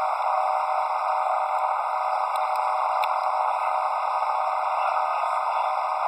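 Steady running noise heard from aboard a motorboat under way: engine and rushing water, thin and tinny with no bass.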